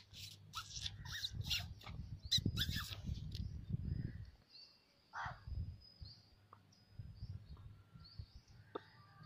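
Irregular crackling and a low rumble for the first four seconds or so, then birds chirping in the background, with one louder bird call about five seconds in.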